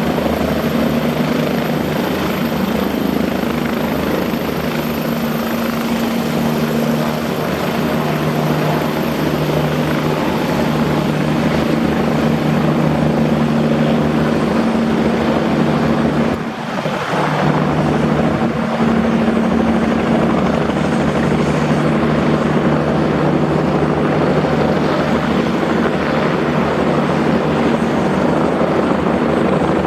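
Bell 429 GlobalRanger twin-turboshaft helicopter running steadily at close range, a loud, even rotor and turbine sound with a constant hum. There is a brief drop in level about halfway through.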